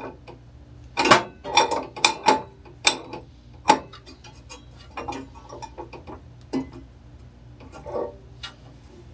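Metal hand tools clicking and rattling against the table saw's metal parts as they are undone: a quick cluster of sharp clicks over the first few seconds, then scattered single clicks.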